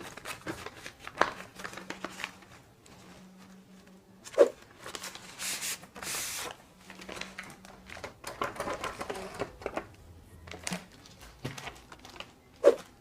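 Paper rustling and handling as a pack of A4 sheets is opened and the sheets are loaded into an inkjet printer's rear paper feeder, with scattered sharp clicks and knocks. The loudest knocks come about four and a half seconds in and near the end.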